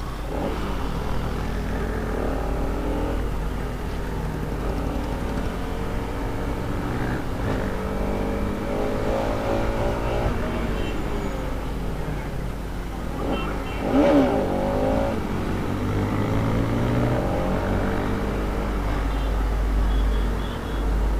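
Bajaj Pulsar RS200's single-cylinder engine and exhaust on the move, the pitch climbing and dropping with the throttle and gear changes. The loudest rev comes about two-thirds of the way through.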